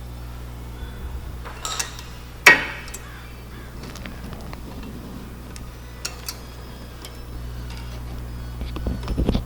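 Metal brake parts clinking as new brake pads are handled and fitted into the caliper bracket: scattered sharp clicks with one loud clack about two and a half seconds in, and a few dull knocks near the end.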